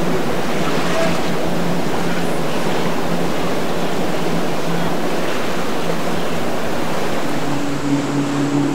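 Steady rush of waves and wind at a rough inlet, with a faint boat engine hum underneath. Near the end the rush eases a little and a boat engine's steady drone comes up.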